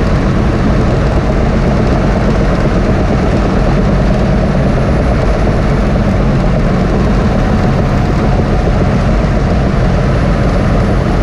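Caterpillar D6T LGP bulldozer's diesel engine running steadily under load as the dozer pushes dirt, heard from inside the cab.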